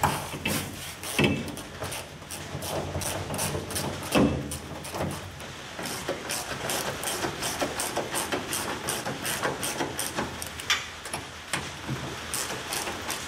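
Ratchet wrench clicking in quick, even strokes, about three clicks a second, while tightening trunk-lid hinge bolts. There are a few louder metallic knocks in the first few seconds, over a steady low hum.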